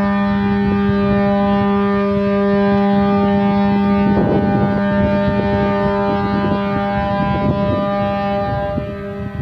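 A boat's horn sounding one long, steady blast on a single low note, fading out near the end.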